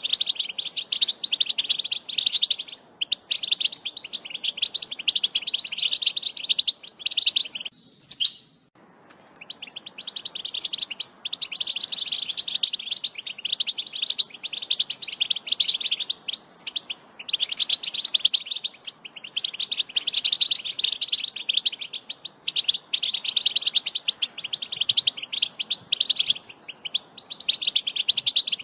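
European goldfinch song: a fast, tinkling twitter that runs on almost without pause, with one short break about eight seconds in.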